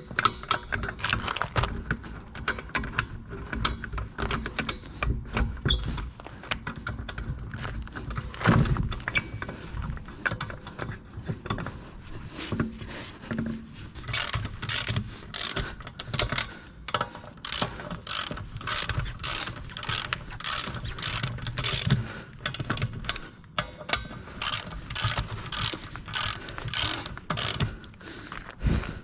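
Hand ratchet clicking in repeated back-and-forth strokes, working the wheel nuts during a tire change. The strokes fall into a steady rhythm of about two a second in the second half.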